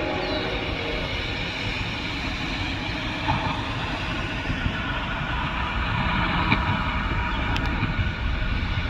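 Autorack freight train rolling past: a steady rumble and rail noise, with a few sharp clicks from the wheels.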